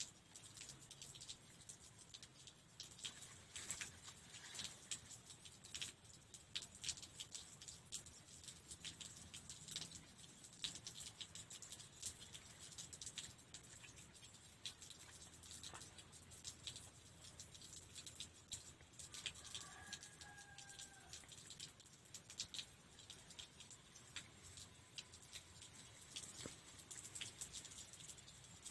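Quiet, irregular small clicks and rustles of fence material being woven by hand. A brief faint call is heard about twenty seconds in.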